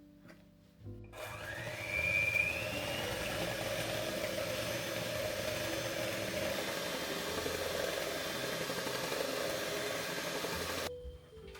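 A small electric appliance motor runs for about ten seconds. It starts suddenly with a whine that rises as it spins up, runs steadily and rough, then cuts off shortly before the end.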